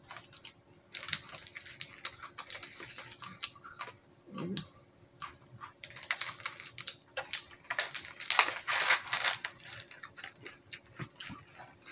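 Foil snack wrapper crinkling and a cardboard snack box rustling as the opened Pocky packaging is handled and folded, an irregular run of crackles and clicks that comes in two busier spells.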